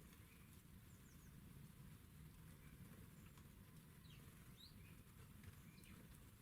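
Faint songbird calls at a garden feeder: a few scattered short chirps and quick rising notes, over a low steady rumble.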